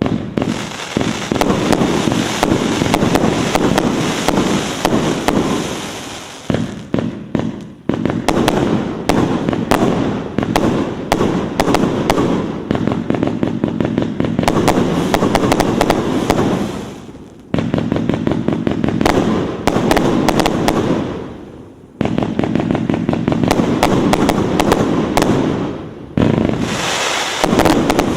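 Fireworks going off: a loud, dense run of rapid bangs and crackles that dies down briefly several times and picks up again.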